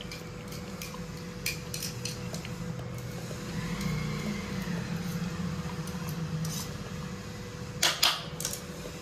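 Kitchen utensils clinking and tapping against steel dishes while chili pickle is mixed and packed. The taps are light and scattered, with two sharper clinks near the end, over a steady low hum.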